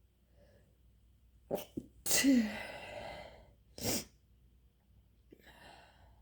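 A person sneezing on purpose: two quick sharp catches of breath, then about two seconds in one loud sneeze whose voiced part falls in pitch as it dies away. A shorter sharp burst follows about a second later, and a softer breathy one near the end.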